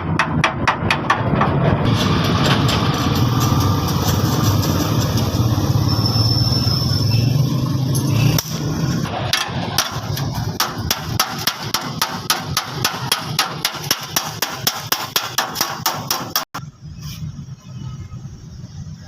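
Hammer blows on car body sheet metal in a rapid, even rhythm of about four strikes a second, as a rusty panel is beaten into shape. For several seconds early on, a louder steady noise with a low hum covers the blows. The sound cuts off suddenly near the end.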